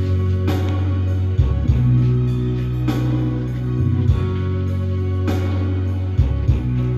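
Instrumental backing track with guitar over a sustained bass line, the low note changing about every two and a half seconds.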